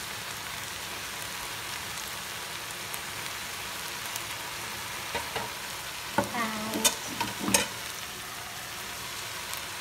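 Stir-fry vegetables sizzling steadily in a frying pan, with a few short clicks in the second half.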